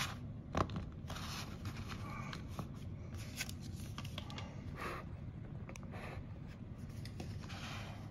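Faint taps, clicks and scrapes of a small toy monster truck being set on its display stand and handled on a tabletop, with one sharper click about half a second in.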